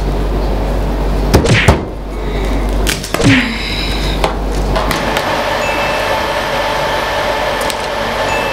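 Chef's knife chopping through hard corn cobs onto a cutting board: a few heavy knocks, two close together early on and more around three to four seconds in. About five seconds in they give way to a steady hum.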